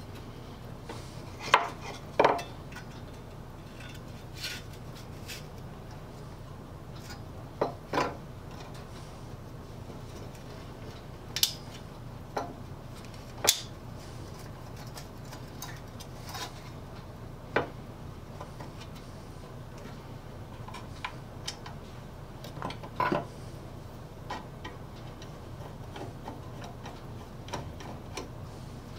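Scattered clinks and light knocks of a steel saw blade and its wooden handle being handled on a workbench as the handle is fitted back onto the blade and a saw screw is put in, over a steady low hum.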